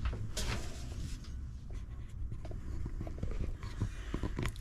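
Light handling noises: scattered small clicks, taps and rustles over a steady low hum.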